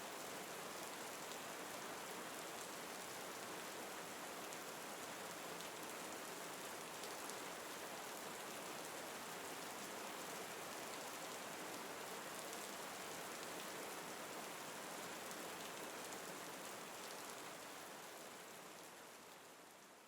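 Steady rain falling on a surface, an even hiss with faint scattered drops, fading out over the last few seconds.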